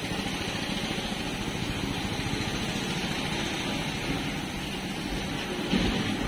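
An engine or motor running steadily with a fast low pulsing, and a single dull bump near the end.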